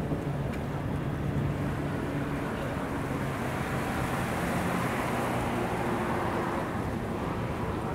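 Steady low engine drone with a few held low tones, under wind noise on the microphone.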